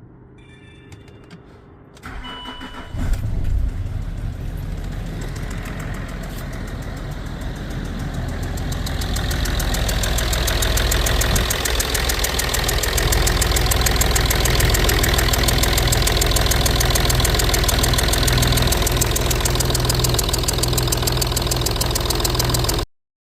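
Range Rover Sport engine started: a short electronic beep, the starter cranking about two seconds in, the engine catching a second later, then a steady idle that grows louder over the next several seconds. The ticking fault has been repaired.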